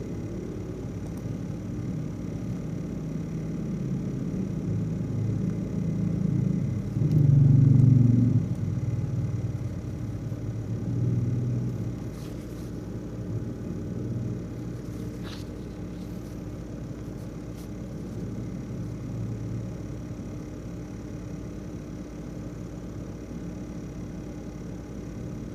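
ASUS X543UA laptop's CPU fan running with a steady buzzing, rattling hum; the rattle is the sign of a faulty fan. The sound swells louder for a moment about a third of the way in.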